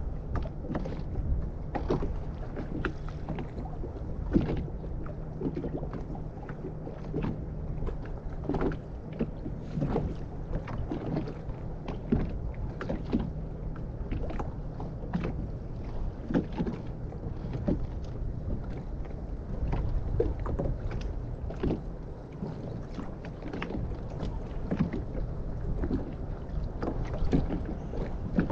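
Small waves lapping and slapping irregularly against the hull of a small boat on choppy open sea.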